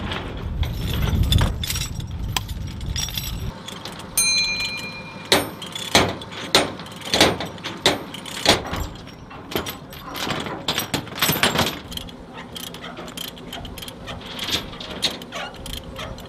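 Heavy steel tie-down chains and ratchet load binders being worked loose: a run of sharp metallic clanks, rattles and jingles of chain links. A low rumble lies under the first few seconds and then stops.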